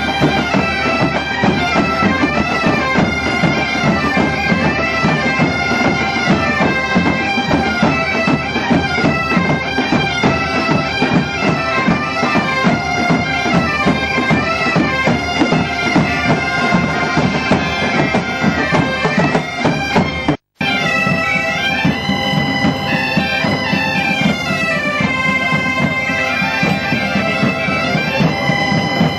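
Massed Galician bagpipes (gaitas) playing a tune in unison over their steady drones, with drums beating along. The sound drops out for an instant about two-thirds of the way through, then carries on.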